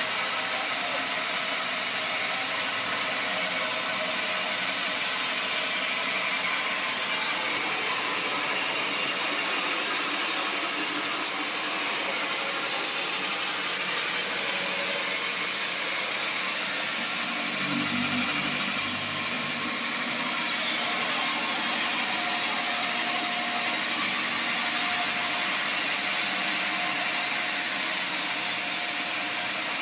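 Sawmill saw and machinery running steadily at a constant level, with a brief deeper hum about eighteen seconds in.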